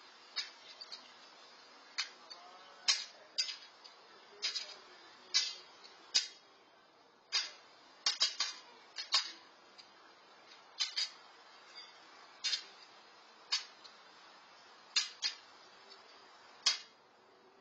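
A jay's beak tapping against a metal pan as it pecks out cat food: sharp, irregular clicks, roughly one a second and sometimes in quick pairs.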